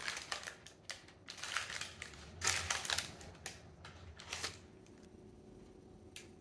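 Parchment paper crinkling and rustling in irregular bursts as metal baking trays lined with it are handled, for about the first four and a half seconds, with a faint click near the end.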